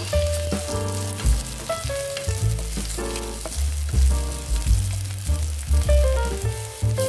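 Green beans and chopped garlic sizzling in hot oil in a nonstick pan as they are stirred with a wooden spatula. Background music with a melody and deep bass notes plays over the sizzle.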